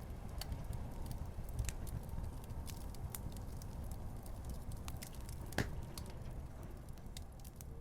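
Fire crackling: irregular sharp pops and snaps over a low steady rumble, with one louder pop about halfway through. The sound slowly fades toward the end.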